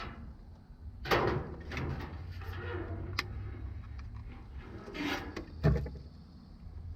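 Hands working the metal parts of a garden tractor's throttle control: scraping and clunking, loudest about a second in, with a sharp knock near the end, over a steady low hum.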